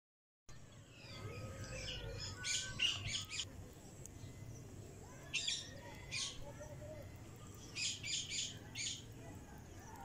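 Cockatiel chirping: three bursts of short, high chirps, two to four in quick succession each time, a couple of seconds apart.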